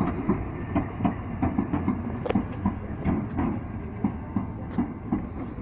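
Class 456 electric multiple unit moving through the station: wheels clicking over rail joints at several clicks a second above a low rumble, easing slightly toward the end.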